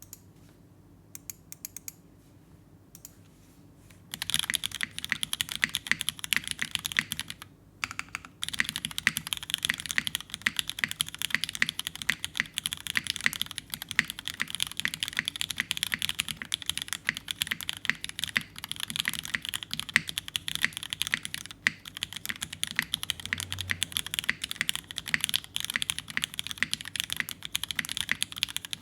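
Mechanical keyboard with vintage Cherry MX Black linear switches in an aluminum top-mount plate, Cherry-profile keycaps and no dampening foam, being typed on. A few scattered keystrokes are followed by steady fast typing from about four seconds in, with a brief pause near eight seconds.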